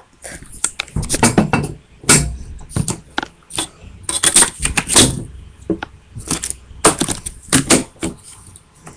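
Small hard objects being handled and put down: an irregular run of clicks, taps and clatters of plastic and metal stationery.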